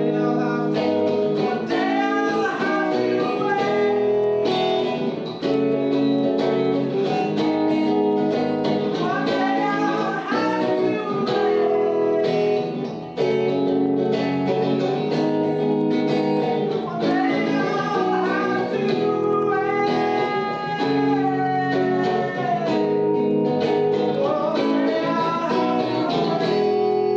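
Acoustic guitar played continuously with a singing melody line over it, in a song between sung refrains.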